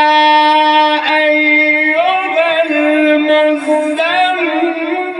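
A man reciting the Quran in the melodic mujawwad style through a microphone and loudspeakers, holding long ornamented notes; the melody moves to a new pitch about two seconds in.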